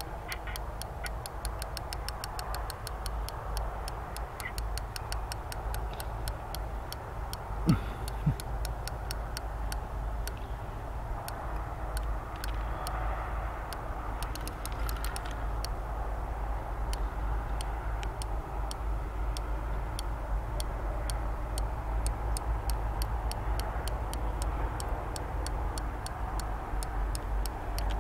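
Fishing reel ticking in a long run of even clicks that speeds up and slows down while a hooked fish is played. Two short thumps stand out about eight seconds in.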